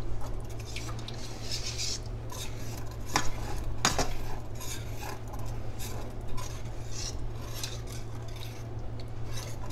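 Wire whisk stirring through milky chowder in a metal pot, its wires scraping and clinking against the pot's sides and bottom, with two sharper clinks about three and four seconds in. A steady low hum runs underneath.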